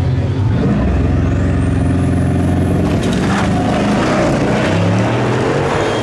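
Bugatti Chiron's 8.0-litre quad-turbo W16 held at high revs on the start line, then launching hard about half a second in and accelerating away, its note fading after a few seconds. A high whine rises steadily in pitch as the cars pull away.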